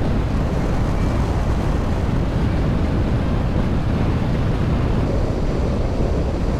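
BMW R 1200 RS motorcycle riding at road speed: a steady rush of engine, tyre and wind noise over the camera microphone, the boxer twin's rumble underneath the wind.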